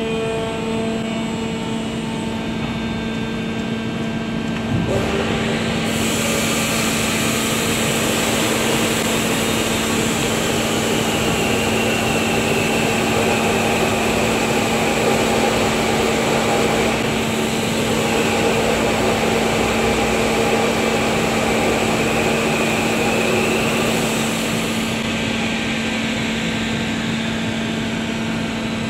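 CNC metal spinning machine running with a steady hum; about five seconds in, its forming roller presses on the spinning bottle blank and a loud hiss joins in, with a whine that slowly rises and falls. The hiss drops away about four seconds before the end, leaving the hum.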